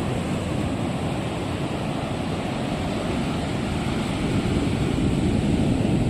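Ocean surf washing on the beach, with wind buffeting the microphone; the noise swells a little about four and a half seconds in.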